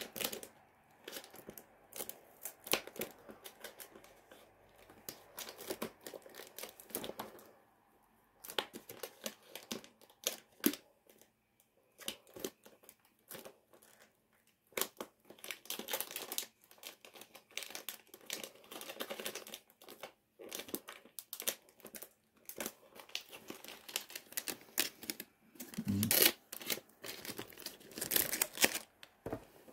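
Packaging being handled close to the microphone, crinkling and crackling in irregular bursts with a few short pauses. The loudest, fullest handling noise comes near the end.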